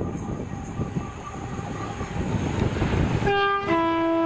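Train running past with a steady rumble, and about three seconds in its two-tone horn sounds: a short higher note, then a longer lower one.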